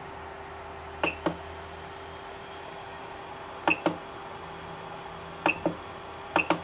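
Short, sharp clicks from a 3D printer's control knob and display, coming in four pairs as menu items are turned to and selected to preheat for PLA, over the steady low hum of the running printer.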